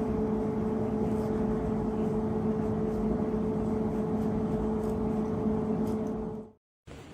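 A steady machine hum: a constant low drone with a second, higher tone above it over a rumbling noise, cutting off suddenly near the end.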